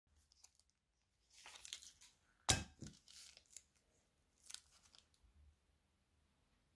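Small plastic bag of soft clay crinkling and tearing as the clay is squeezed out onto a glass dish. One sharp crackle about two and a half seconds in is the loudest moment, followed by softer crinkles.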